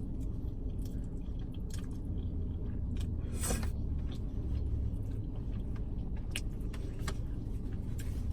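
Close-up chewing of creamy fettuccine alfredo, with small wet mouth clicks and a louder, longer smacking sound about three and a half seconds in. A steady low hum from the car runs underneath.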